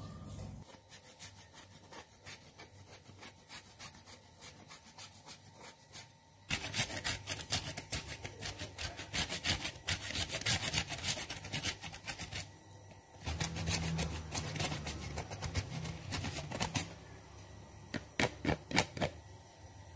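Hand grater rasping in quick repeated strokes, shredding chocolate and cheese onto a pudding. The strokes are faint at first and get much louder about six seconds in. A low hum sits under them for a few seconds past the middle.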